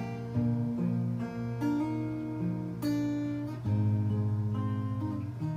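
Acoustic guitar played solo in an instrumental passage, a new chord coming in about every second. A deeper, louder chord enters about two-thirds of the way through and rings on.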